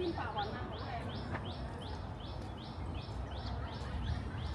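Birds chirping: a few warbling notes at the start, and a high call repeated evenly about three times a second throughout, over a low rumble of background noise.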